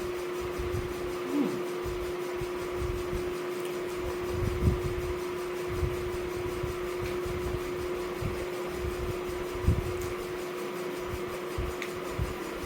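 Steady machine hum, like a fan running, with a few soft low thumps.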